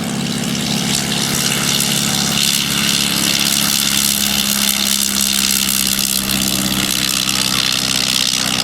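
Tiger Moth biplane's de Havilland Gipsy Major engine and propeller running at takeoff power, a steady drone whose tone shifts slightly about two and a half seconds in.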